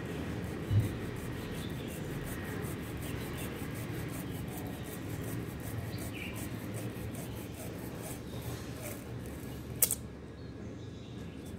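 Knife blade sawing and scraping through the dry, papery wall of a hatched praying mantis egg case (ootheca): a steady rasping rub. There is a brief low thump about a second in and a sharp click near the end.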